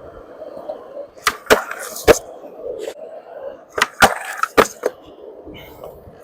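Skateboard rolling, with two quick runs of sharp wooden clacks from the deck: tail pops, board flicks and landings of tricks.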